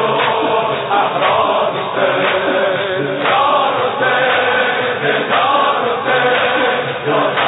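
A large male congregation chants a Shia mourning refrain for Husayn (noha) in unison. The chant runs over a beat that comes about once a second.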